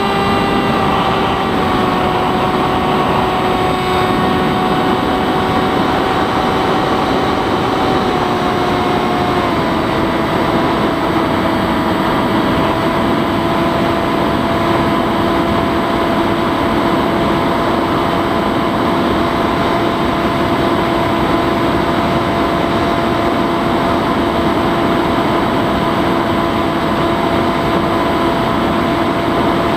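Electric brushless motor and pusher propeller of a Bixler 3 foam RC plane running steadily under wind rush, heard from on board. Its pitch steps down slightly about a second in and again about nine seconds in as the throttle is eased, then holds.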